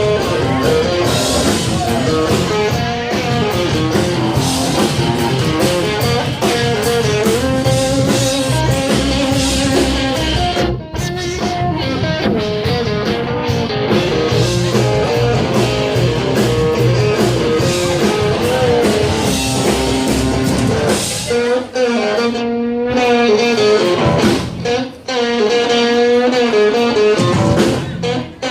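Live blues-rock band playing an instrumental break, a guitar lead over drums and bass. About 21 seconds in, the drums and bass drop out and the guitar carries on alone.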